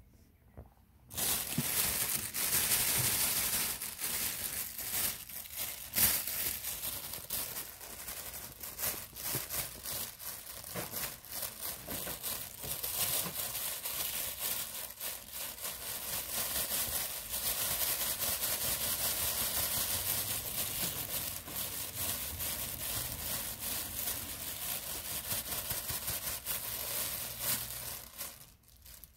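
Thin clear plastic bag crinkling and rustling close to the microphone as it is handled, starting about a second in and stopping near the end.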